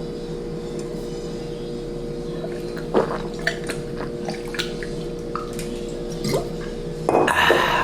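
A man drinking water, with small swallowing and liquid clicks over a steady background hum. He lets the water flow down rather than pushing it down as for a burp. A louder breathy noise comes near the end.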